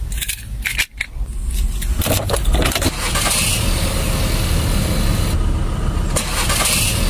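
Car key jangling and clicking as it is turned in a Volkswagen Beetle's ignition for the first few seconds, then the car's engine running steadily.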